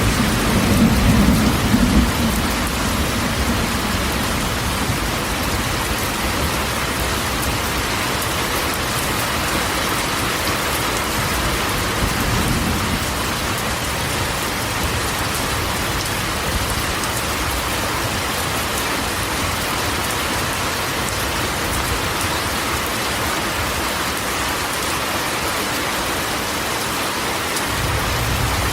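Steady rain drumming on a corrugated metal roof, with low thunder rumbling at the start, again about twelve seconds in, and near the end.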